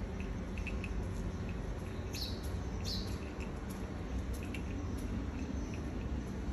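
Small birds chirping in short repeated notes, with two louder calls sweeping downward in pitch about two and three seconds in, over a steady low rumble.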